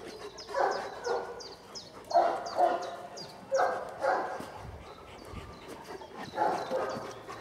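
Leonberger dogs barking, in short pairs of barks every second or two with a longer gap before the last pair.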